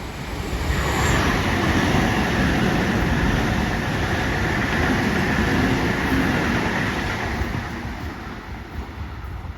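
Train passing through the station at speed: the rumble and rail noise swell within the first second, hold steady for about six seconds, then fade as it goes by.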